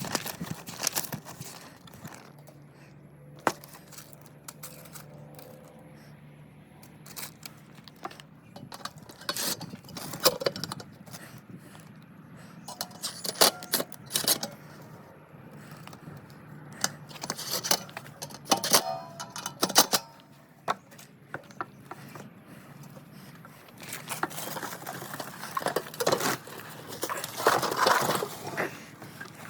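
Small metal hardware and tools clinking, clicking and rattling as ceiling fan parts are handled and fitted, in scattered irregular knocks. A faint low steady hum runs for several seconds from about two seconds in.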